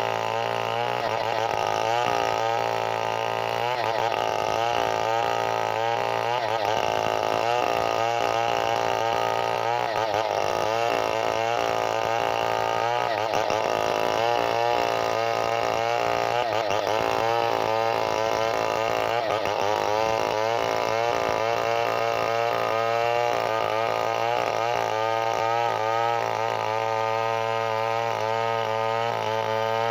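A chainsaw running continuously, its engine speed rising and falling throughout.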